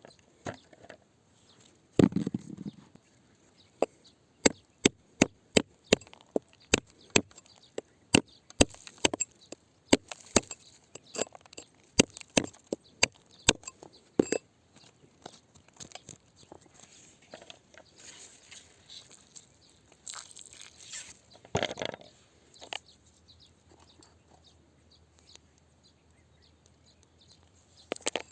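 Repeated sharp strikes of a hand digging tool on rock, about two a second for some ten seconds, with a heavier thud shortly before them and scraping of rock and dirt later on.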